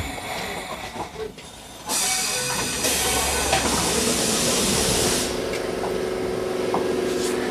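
Enoshima Electric Railway 1000 series train standing at a station: about two seconds in, a sudden burst of compressed-air hiss from its pneumatic gear lasts about three seconds, then gives way to a steady hum from the stationary car's equipment.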